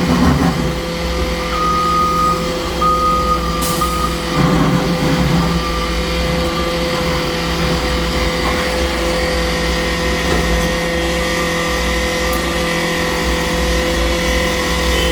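Heavy road-construction machinery running steadily, with a backup alarm beeping a few times in the first few seconds.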